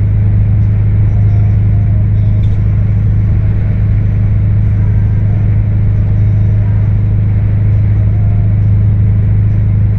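Scania 164L 580's 16-litre V8 diesel engine running at a steady idle, with a loud, even low rumble and no revving.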